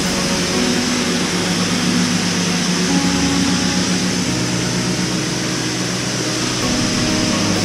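Self-service car wash's high-pressure foam gun system running: a steady, loud rushing hiss of spray over a low pump hum.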